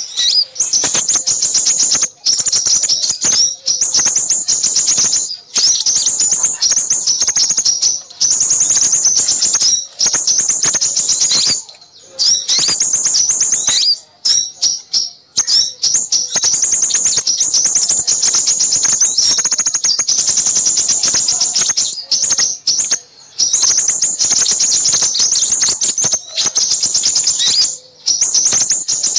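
Small-bird lure recording: many small birds chirping and twittering noisily in fast, high-pitched runs broken by brief pauses.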